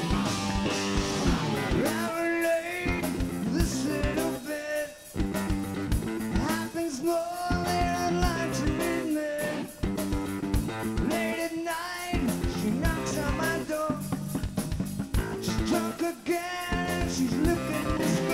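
Live rock band playing: distorted electric guitars, bass and a drum kit, with a melody line sliding up and down over them.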